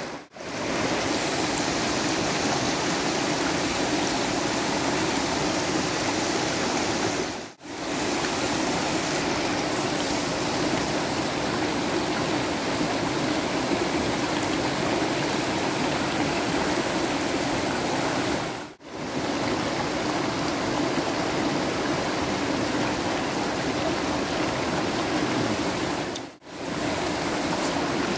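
Fast-flowing river rushing over rocks and rapids: a steady, dense sound of churning water that cuts out briefly three times.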